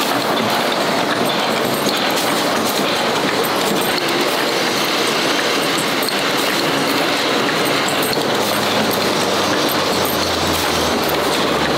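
Screw-making press machinery running: a steady, unbroken mechanical din with faint scattered ticks and no pauses.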